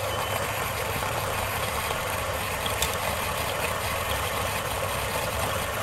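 Niche Zero coffee grinder, with 63 mm conical burrs, grinding a 10 g espresso dose: a steady motor hum under a dense, even grinding noise.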